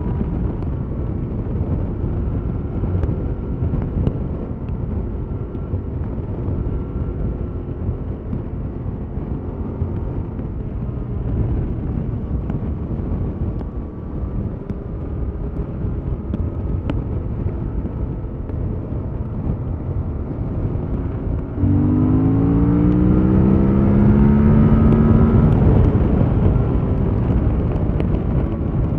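Yamaha MT-07's 689 cc parallel-twin engine on its stock exhaust while riding: a steady cruising note under wind and road noise, then about three-quarters of the way through the throttle opens and the engine note jumps louder and climbs for a few seconds before easing off.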